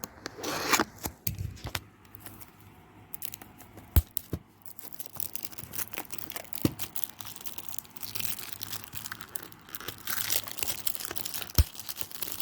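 Plastic CD packaging being torn and crinkled by hand, in several spells of rustling, with a few sharp clicks.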